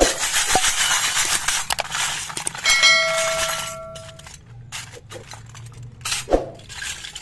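Miniature stainless-steel toy pots, cups and plastic kitchen pieces rattling and clinking together in a plastic basket. About three seconds in a bright metallic ring sounds for over a second, and there is a single sharp knock near the end.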